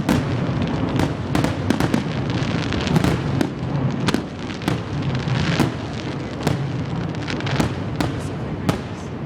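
Fireworks going off in a rapid, irregular string of sharp bangs, about two or three a second.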